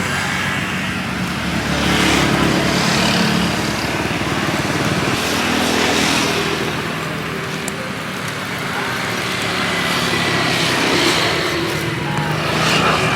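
Road traffic: motor vehicle engines running and passing, swelling and fading every few seconds.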